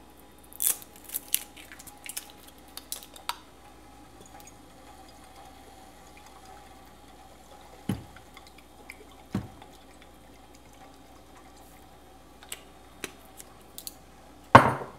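Liquid poured from a glass bottle into a stainless steel pot of broth, with small clicks and clinks of the bottle being handled in the first few seconds, two soft thumps in the middle, and a single louder knock near the end.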